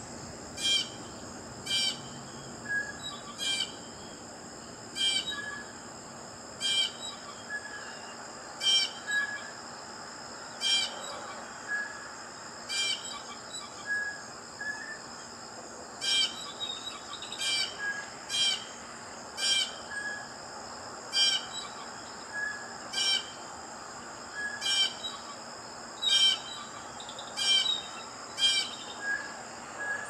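Blue jay calling: short, sharp calls repeated about once a second, with softer chirps in between, over a steady high-pitched drone.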